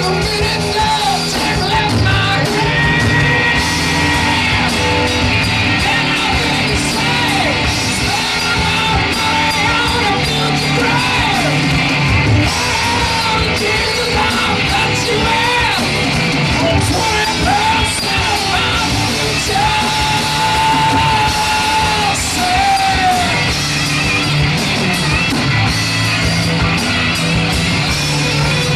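A live rock band plays electric guitars, bass and drums under a male lead vocal that yells and holds long high notes. It is recorded from among the audience in a club.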